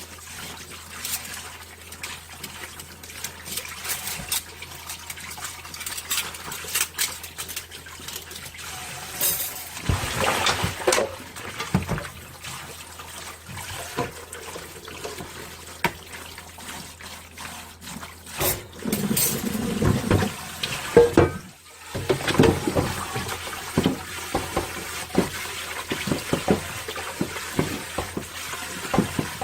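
Dishwashing at a kitchen sink: water running from the tap with frequent small clinks and knocks of dishes. Louder splashing comes about a third of the way in and again about two-thirds in, then the sound drops away for a moment before the washing resumes.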